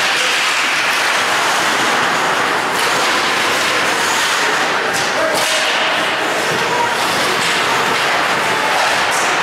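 Ice hockey play at rinkside: a steady hiss and scrape of skates on the ice, with a few sharp clacks and thuds of sticks, puck and boards.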